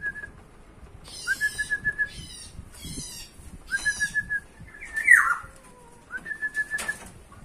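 Caged bird singing a repeated phrase about every two and a half seconds: a short rising whistle running into a quick string of clipped notes, with buzzy, rattling notes above. A louder, harsher call breaks in about five seconds in.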